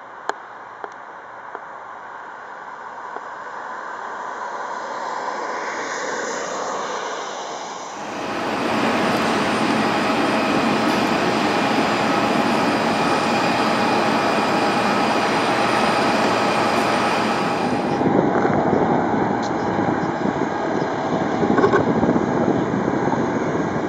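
Junkers Ju 52 trimotor's three radial propeller engines running as the plane moves along the runway. The sound grows steadily louder, then is loud and even from about eight seconds in.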